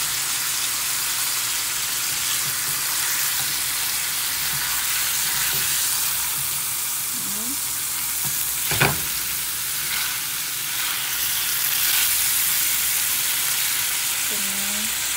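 Chicken pieces sizzling as they fry in a nonstick pan, a steady hiss. About nine seconds in there is one sharp clack as the chicken is turned with a spatula.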